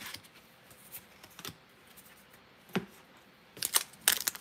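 Pokémon trading cards and a foil booster pack being handled on a desk: soft taps and rustles, a knock about three seconds in, then crinkling of the foil pack as it is picked up near the end.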